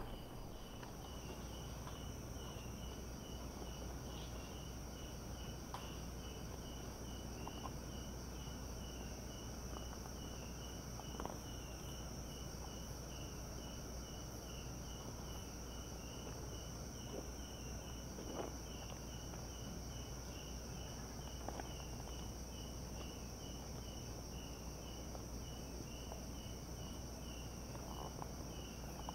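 Night insects, crickets among them, calling: a steady high-pitched drone with a lower chirp repeating about twice a second. A few faint clicks are scattered through it.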